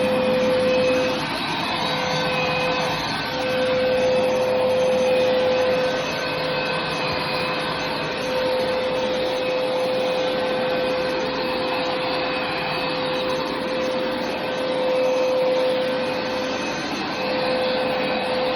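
Hoover carpet cleaner running continuously over carpet: a steady motor whine over airy rushing noise. The level swells and eases gently every few seconds.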